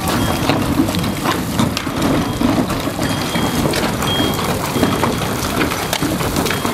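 Tunnel boring machine cutting through the last rock behind a shotcrete portal wall: a steady, loud rumbling mixed with many small crackles, the sign that the machine is about to break through.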